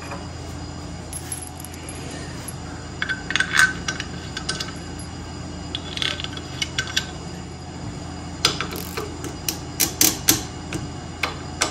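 Light metallic clicks and clinks of hand tools on the steel cover bolts of an ATV's primary drive clutch, scattered at first, then a quicker run of ratcheting clicks near the end as a torque wrench turns the bolts.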